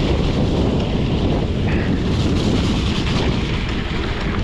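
Steady wind buffeting the camera microphone at riding speed, over the rumble of a fat-tire e-bike's tyres on a wet gravel trail.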